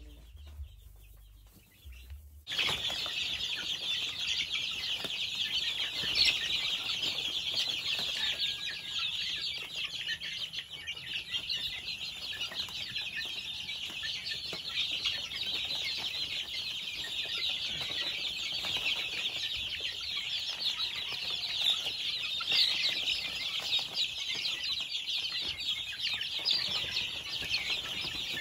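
A crowd of young gamefowl chicks peeping nonstop, many high calls overlapping into a dense chorus that starts abruptly about two and a half seconds in.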